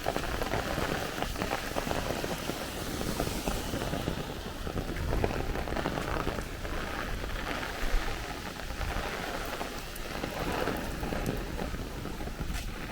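Heavy thunderstorm downpour: hard, steady rain with a dense patter of drops splashing on surfaces close by.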